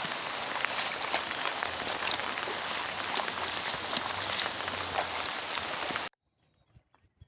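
Rain falling hard: a dense, steady hiss of drops with many small pattering clicks. It cuts off abruptly about six seconds in, leaving near silence with a few faint clicks.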